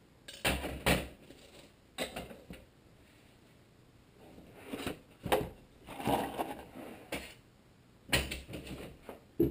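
Engine parts and a wooden work block being handled and set down on a sheet-metal-covered workbench: a series of separate knocks, clunks and clatters, with a heavier thud just after 8 seconds as the wooden work block is set in place.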